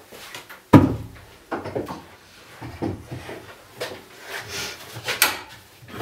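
A mitre saw being set down on a wooden cabinet top: one heavy thud under a second in, then a few lighter knocks and clatters as it is shifted into place.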